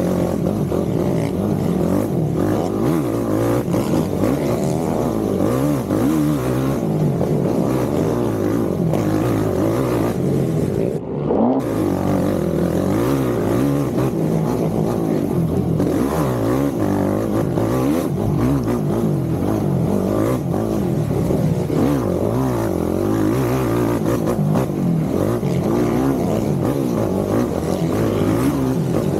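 ATV engine running under way on a trail, its pitch rising and falling continually with the throttle, with a brief break about eleven seconds in.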